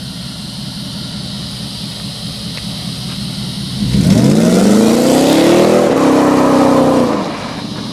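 Ford F-150 pickup engine idling, then revved once about four seconds in, held up for about three seconds, and dropping back to idle near the end.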